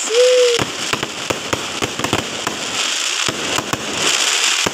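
Aerial fireworks going off: a rapid, irregular run of sharp bangs and pops over a continuous hissing crackle of burning sparks.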